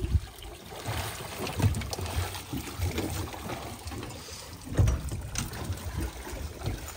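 Seawater sloshing and trickling against a dive boat's stern and ladder as a scuba diver at the ladder hands his gear up. A few low thuds come near the start and again about five seconds in.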